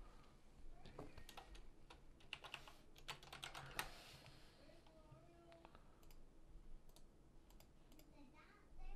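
Computer keyboard keys clicking faintly: a quick run of keystrokes between about one and four seconds in, then a few scattered clicks, as a sign-in is typed at the Windows lock screen.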